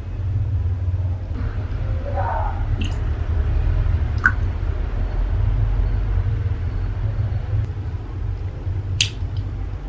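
A steady low rumble, with sharp clicks about three, four and nine seconds in.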